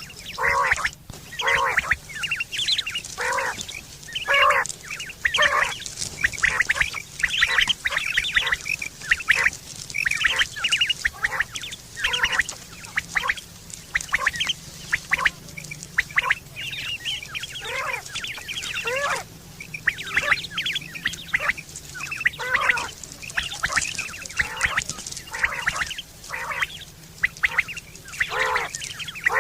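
Quails calling over and over: short, pitched notes follow one another several times a second, closely packed, some overlapping.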